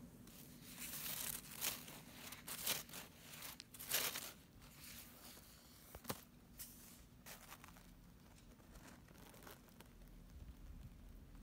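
Close rustling and crinkling from something handled near the microphone, in short bursts that are loudest in the first four seconds, with one sharp click about six seconds in.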